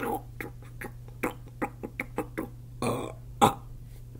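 A person's mouth making a quick, irregular run of about a dozen lip smacks and tongue clicks while tasting a drink, with a short breathy burst and the loudest smack near the end.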